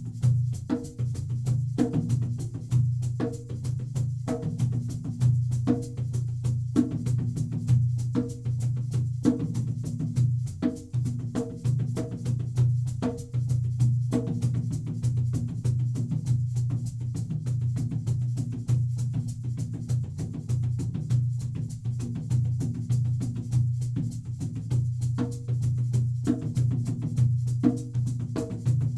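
Instrumental music: a steady low bass tone under fast, evenly repeating percussive hits.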